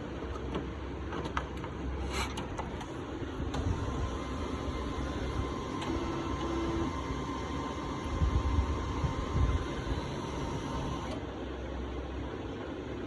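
Canon MF221d laser multifunction printer running: a steady mechanical hum with a few clicks early on and a faint high whine through the middle.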